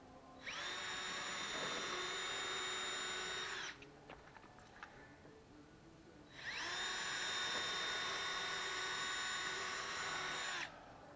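Cordless drill run twice into the edge of a wooden workbench top, each run spinning up quickly to a steady whine for about three to four seconds and then stopping.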